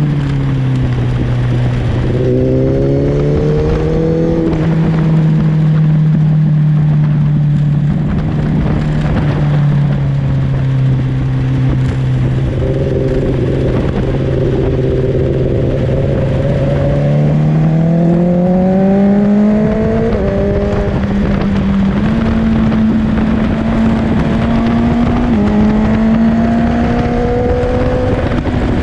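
Four-cylinder sport-bike engine under way, with wind rush on the microphone. The revs drop near the start, hold steady for a long stretch, then climb again past the middle with a couple of sudden steps in pitch.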